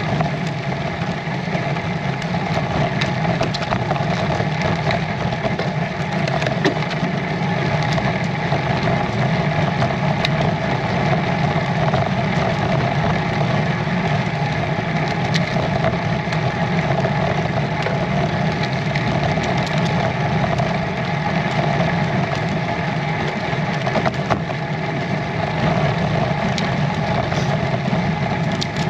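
Steady rolling noise of a Bianchi Aria road bike riding up a tarmac lane at about 7 to 10 mph: tyre rumble with a hiss of moving air.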